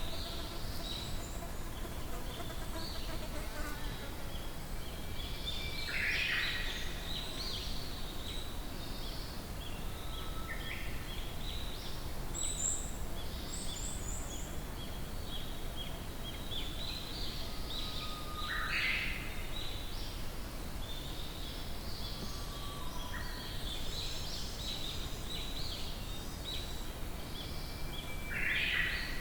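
Many forest birds chirping and singing at once in a busy chorus of overlapping short calls. Louder calls stand out about six seconds in, around the middle and near the end, over a steady low background rumble.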